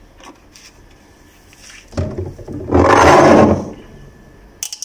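Kitchen handling noise: a loud scraping rub lasting about a second and a half, then a sharp click near the end.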